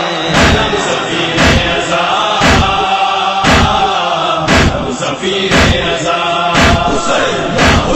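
A group of men chanting a noha chorus in unison, with chest-beating (matam) in time: a sharp slap about once a second.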